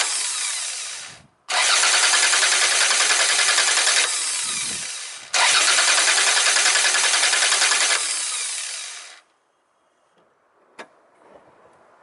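Car starter motor cranking the engine in three bursts of a few seconds each, the first already under way, each tailing off as the starter stops; the engine does not catch because the spark plug cables are disconnected. This is the normal cranking sound of a working starter. A single sharp click near the end.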